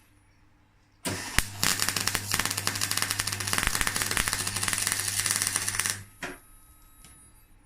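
MIG welder arc crackling on steel, a fast steady run of clicks over a low hum. It starts about a second in and cuts off suddenly about five seconds later.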